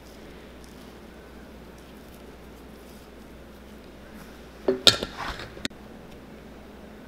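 A few ringing metallic clinks and a short scrape about five seconds in, as the metal brush-cap lid is put back on a metal can of rubber cement; otherwise quiet room tone.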